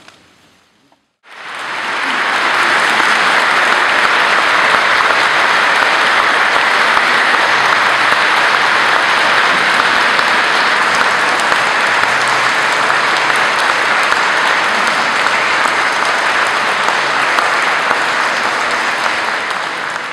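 A congregation's long, steady applause, starting suddenly about a second in and fading out at the end.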